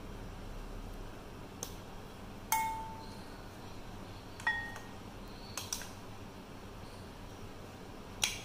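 Plastic cup knocking against the rim of a glass mixing bowl about five times as crumbled paneer is tapped out of it; two of the knocks, about two and a half and four and a half seconds in, leave the glass ringing briefly.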